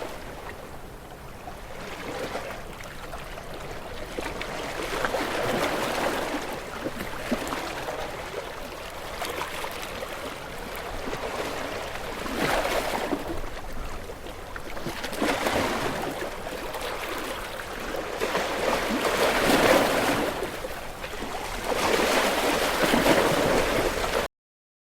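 Ocean waves washing and breaking against rocks, surging and ebbing every few seconds, with louder surges near the end before the sound cuts off suddenly.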